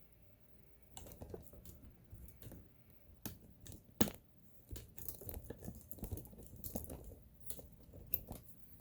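Irregular small clicks, taps and light rustling of hands handling the sewing machine's parts and tools, with one sharper click about four seconds in.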